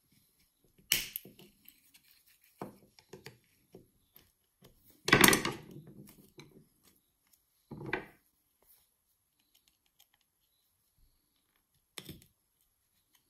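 Flat-blade screwdriver prying and scraping at the plastic casing of an iPhone charger: irregular clicks and scrapes, the loudest about five seconds in, with shorter ones about a second in and near eight and twelve seconds.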